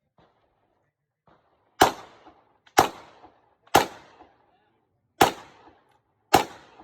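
Five 9mm shots from a Glock 17 pistol, about a second apart with a slightly longer gap before the fourth, each with a short echoing tail. Faint small clicks come before the first shot.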